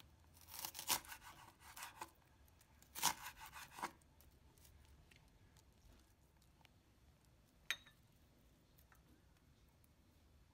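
Knife slicing through a leek on a cutting board: two short runs of crisp cutting strokes in the first four seconds, then a single sharp tap about eight seconds in.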